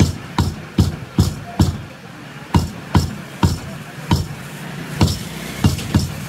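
Heavy meat cleaver chopping beef on a wooden chopping block: about a dozen sharp chops in quick runs, with a short pause about two seconds in.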